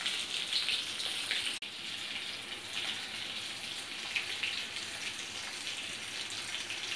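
Hot oil sizzling and crackling steadily in a frying pan, with a brief dropout about a second and a half in.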